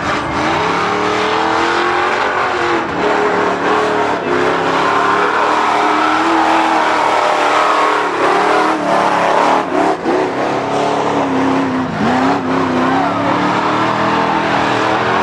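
Lifted Chevrolet pickup on big tractor tires running hard through a mud pit, its engine revving high and unsteady as the tires churn and throw mud and water. The engine pitch sags briefly about twelve seconds in, then climbs again.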